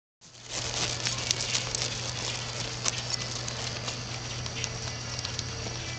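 A horse's hoofbeats on soft arena dirt: irregular dull taps and crackles over a steady low hum and hiss.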